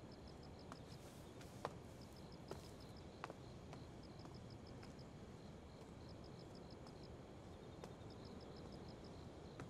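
Crickets chirping in repeated short trilled bursts over a quiet night ambience, with a few faint ticks scattered through.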